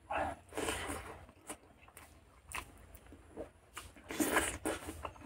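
Close-miked eating sounds: a person chewing mouthfuls of rice and pork curry eaten by hand, with irregular wet chewing and smacking, loudest about four seconds in.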